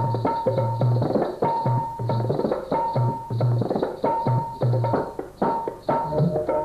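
Instrumental interlude of an old Hindi film song: tabla playing a lively rhythm with deep bass strokes, under a melody instrument repeating a held high note.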